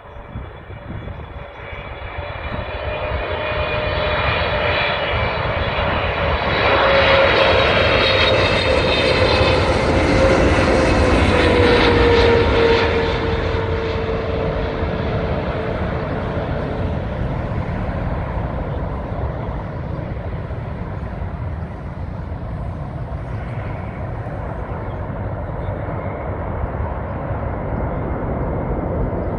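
Boeing 777-300ER's GE90 turbofan engines on final approach: a high fan whine builds into a loud jet roar as the airliner comes close, with a tone that drops in pitch as it passes. A lower steady engine rumble carries on after it goes by and lands.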